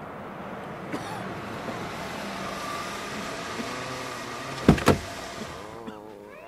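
Sound effect of a jeep driving, its engine running steadily under a hiss of road noise, with two sharp bangs in quick succession near the end.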